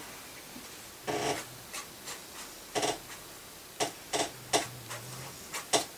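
Watercolour brush worked over heavy 300 lb paper: about six short brushing strokes at uneven intervals.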